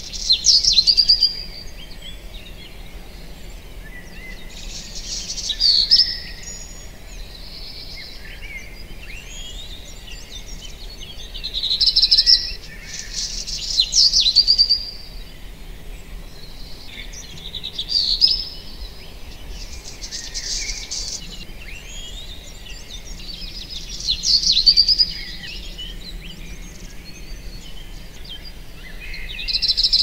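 Forest birds singing: a loud, short song phrase comes again every five or six seconds, with fainter chirps and calls from other birds in between over a low, steady background hiss.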